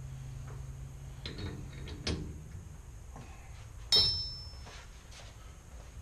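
Metal hand tools handled at a small metal lathe: a few knocks in the first two seconds, then a sharp metallic clink with a brief ring about four seconds in as a tool is set down on the lathe's headstock. A low steady hum stops about two seconds in.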